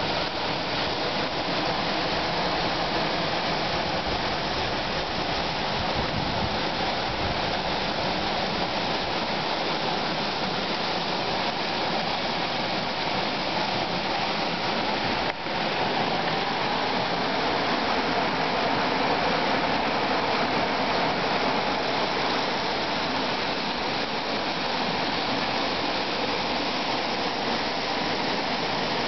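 Smolare Waterfall rushing steadily, a dense unbroken roar of falling water, with a momentary break about halfway through.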